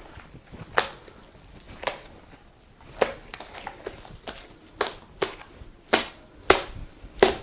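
A series of about nine sharp clicks or snaps, roughly a second apart at first and coming closer together in the second half.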